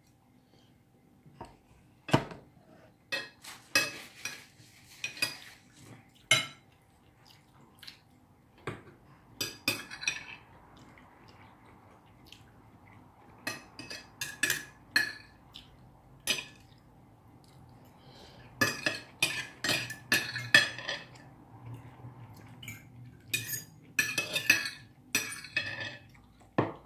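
Knives and forks clinking and scraping on dinner plates as people eat: irregular clusters of sharp clicks, some with a short ring.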